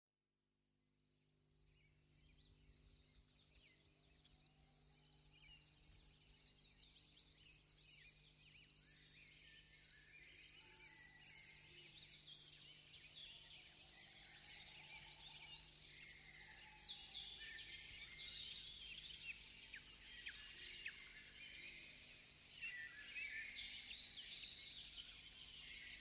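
Birds singing in a dense outdoor chorus of many short chirps, fading in from silence and slowly growing louder, over a steady high thin tone.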